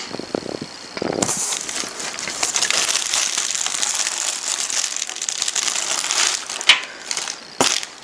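Clear plastic bag around a computer case crinkling and crackling as hands handle it, a dense crinkle from about a second in, with two sharp snaps near the end.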